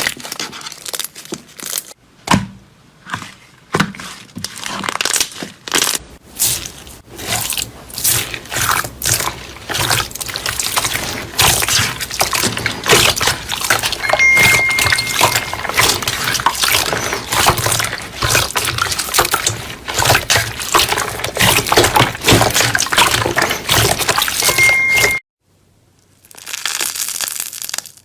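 Slime being handled for ASMR, giving dense wet clicks, crackles and pops. About 25 s in it cuts off abruptly, and after a short gap a softer, even rustling begins.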